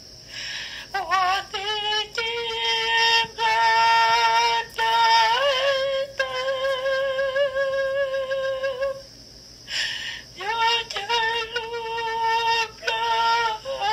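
A woman singing a slow melody in long, held notes with vibrato, pausing briefly about nine seconds in, over a steady high hiss.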